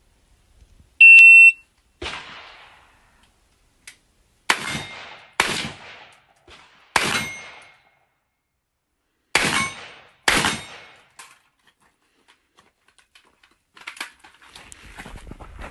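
Shot timer start beep, then five shots from an AR-15 rifle in .223, unevenly spaced. The first comes about three and a half seconds after the beep and the last about nine seconds after it. A short ringing tone lingers after some of the shots.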